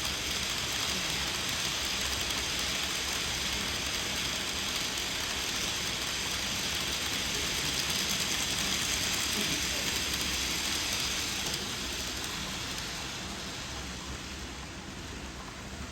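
N-gauge model freight train running along the track, a steady rushing hiss of small wheels and motor that fades from about twelve seconds in as it moves away.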